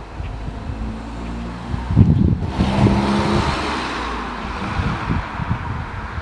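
2000 Yamaha YZF-R6's 600 cc inline-four running through its gutted and shortened stock exhaust, given a burst of throttle about two seconds in that makes it louder for a second or two before it eases back.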